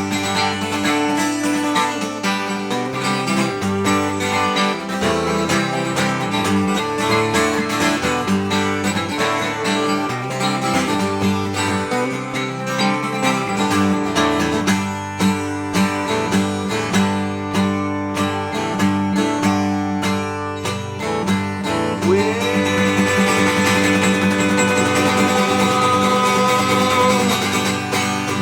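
Instrumental break in a country song: acoustic guitar with a moving bass line and busy picked notes. In the last six seconds a note slides up and is held.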